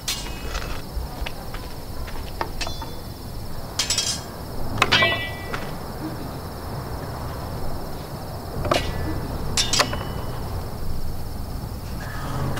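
Sharp metallic clinks and knocks, about seven spread through, a few ringing briefly, over a steady high chirring drone of night insects.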